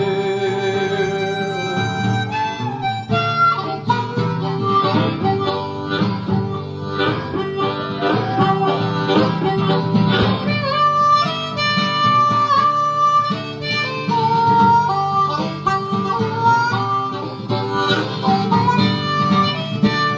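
Instrumental break in a country-folk song: a harmonica plays the melody over guitar accompaniment.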